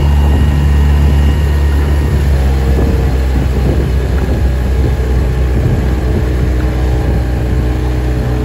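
Small motorboat's engine running steadily at an even speed, a loud low drone.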